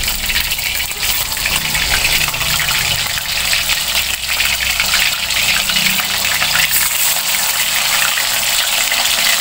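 Raw chicken pieces deep-frying in hot oil in a wok, a steady sizzle full of fine crackling.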